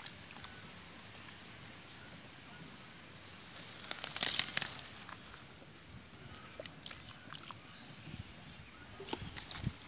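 Hands tearing and rustling grass and weed stems, with a loud crackling rip about four seconds in, then scattered small snaps and rustles and a few knocks near the end.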